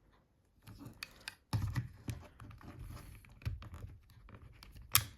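Plastic parts of a Siemens C62 mobile phone's housing and small tools being handled during disassembly: irregular light clicks and scrapes, with one sharp, louder click near the end.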